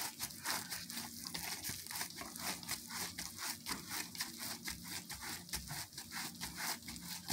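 Plastic cling film crinkling and rustling as gloved hands twist and press a ball of sushi rice into shape: a rapid run of faint crackles.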